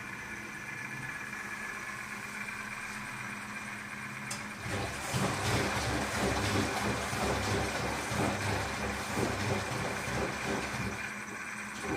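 Izola Apollo 636W washing machine running with a steady hum. About five seconds in, after a click, the drum turns for about six seconds with an uneven rumbling and sloshing, then stops.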